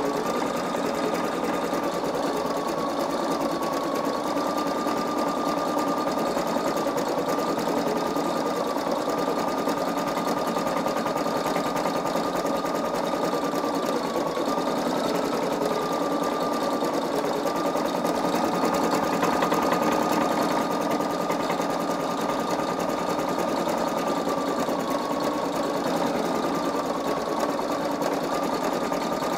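Singer EM9305 computerized embroidery machine stitching out a design: a steady, continuous whine with rapid needle stitching, the whine wavering slightly in pitch.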